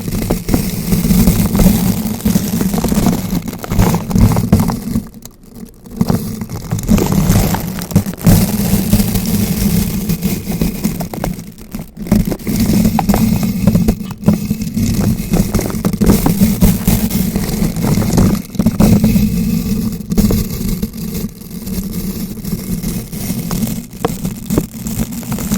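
Bristle brush rotated against a bare microphone: continuous scratching and crackling with a heavy low rumble, easing off briefly about five seconds in.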